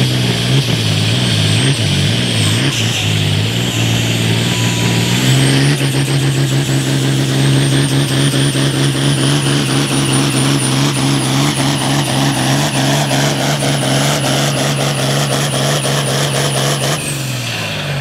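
A John Deere pulling tractor's diesel engine under full load, dragging a weight-transfer sled. Engine speed wavers for the first few seconds, then holds steady at high revs with a thin high whine slowly climbing over it. Near the end the revs fall away sharply as the throttle comes off at the end of the pull.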